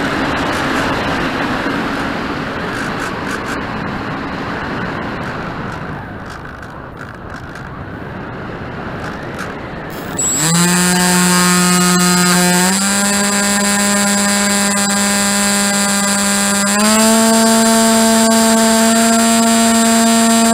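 Air rushing past a model aircraft's onboard camera while its motor is throttled back. About halfway through, the motor and propeller spin up to a loud, steady, high-pitched hum, which steps up in pitch twice as the throttle is opened further.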